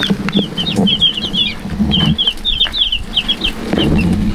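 A brood of day-old Cornish Rock broiler chicks peeping, many rapid high chirps overlapping without pause, with a low rumble underneath.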